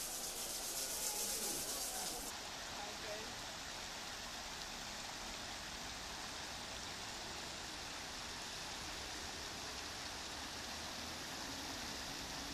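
Water falling from a droplet-curtain fountain and splashing into its basin, a bright hiss that stops suddenly about two seconds in. It gives way to the steady rush of a shallow river running over low rock weirs.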